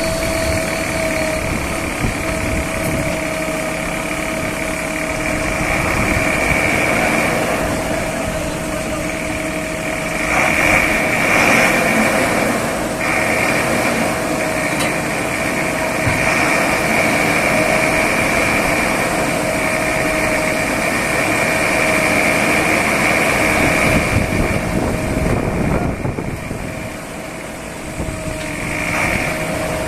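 A backhoe loader's diesel engine runs steadily under working load, with a constant high whine over the engine noise. The engine eases off briefly near the end and picks up again.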